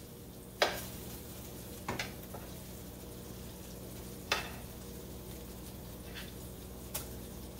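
Onions sizzling faintly in oil in a skillet as they are scooped out with a metal spoon into a bowl. A handful of short, sharp clicks come from the spoon striking the pan and the bowl.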